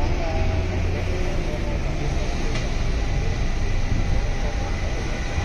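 Busy city square ambience: a steady low rumble of road traffic with faint distant voices of people passing.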